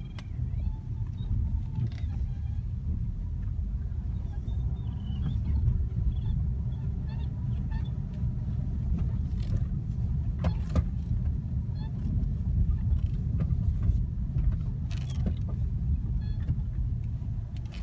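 Low, steady rumble inside a Lexus GS 250's cabin, with a few faint short high squeaks a few seconds in and occasional light clicks. The owner is chasing a creak in the steering wheel.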